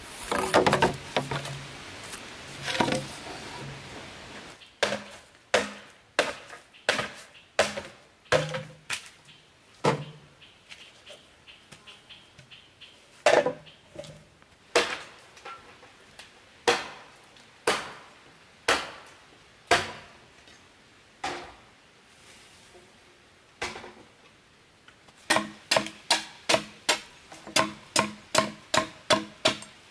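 A machete chopping green bamboo, each blow a sharp, hollow knock with a brief ring from the tube. There are also hollow clacks of cut bamboo sections being set down. The blows come about once a second for most of the stretch, then quicken to about two a second near the end.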